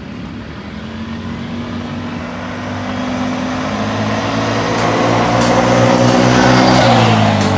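2019 Can-Am DS 250 ATV's single-cylinder four-stroke engine held at full throttle on a timed run. It has its spark arrestor removed, is jetted up two sizes and has its carburetor spacer removed. It grows steadily louder as the quad approaches, then drops in pitch and level as it passes close by near the end.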